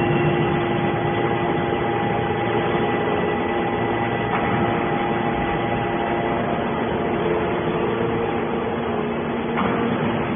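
Hydraulic metal baler running: a steady machine hum with several constant whining tones from the motor and hydraulic pump, and a slight change in the sound about four seconds in and again near the end.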